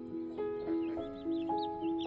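Gentle background music of held notes that change every half second or so, with small birds chirping over it.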